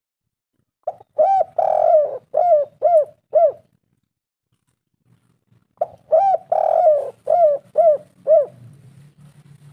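Spotted dove cooing: two phrases of about six short, arched notes each, the second note of each phrase drawn out longer than the rest.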